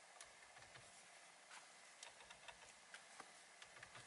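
Near silence: room tone with faint, irregular small ticks.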